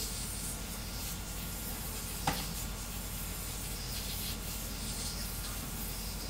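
3D printer printing at high speed: stepper motors and fans running with a steady noise as the toolhead darts back and forth, and one sharp click a little over two seconds in.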